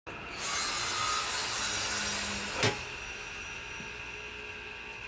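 Steady rasping noise, like a tool working wood, with a single sharp knock about two and a half seconds in, after which the rasping is quieter.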